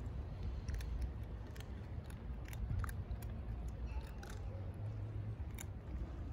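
Cats crunching dry kibble: irregular short, crisp crunches from chewing, over a steady low rumble.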